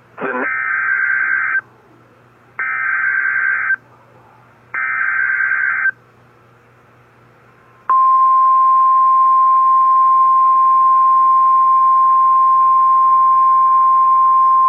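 NOAA Weather Radio alert signal. Three short buzzy SAME digital header bursts about a second apart are followed, about eight seconds in, by the steady single-pitch 1050 Hz warning alarm tone, announcing a new weather warning.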